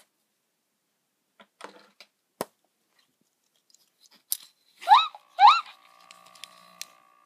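Two quick rising squeaky chirps, about five seconds in and half a second apart, from a Blu Blu interactive plush dolphin toy, after a few faint clicks. A faint steady tone follows the chirps.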